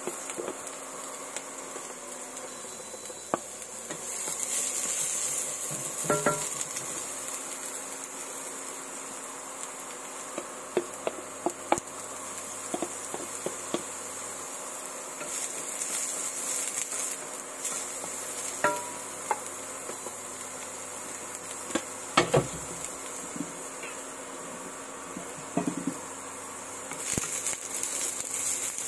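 Chopped onions frying in hot oil in a stainless steel pan: a steady high sizzle that swells a few times, with a spatula clinking against the pan now and then. A faint steady hum runs underneath.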